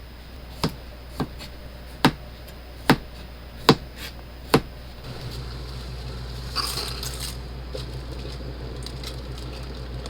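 A knife chopping on a cutting board: six sharp, slow strokes, a little under one a second. About halfway in a steady low hum starts and runs on, with a short hiss or rustle soon after.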